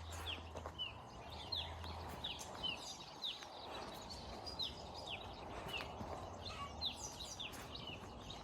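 Young chicks peeping: many short, high cheeps that slide downward in pitch, overlapping at two or three a second.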